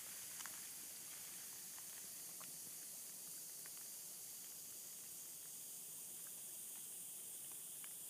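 Silt-laden Yukon River water sizzling: a faint, steady high hiss with scattered tiny ticks. It is made by countless fine grains of glacial silt carried in the current and scouring the rocks on the riverbed.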